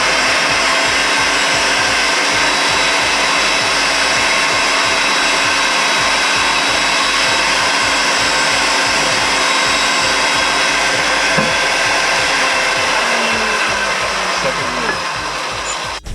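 Electric power tool motor running steadily and loudly for about sixteen seconds, starting up just before and stopping abruptly near the end.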